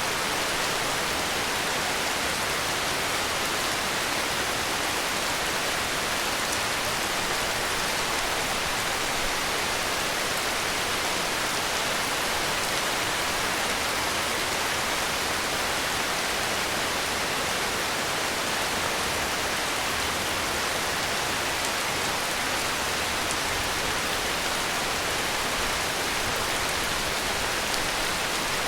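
Heavy rain falling steadily: an even, unbroken hiss of rainfall.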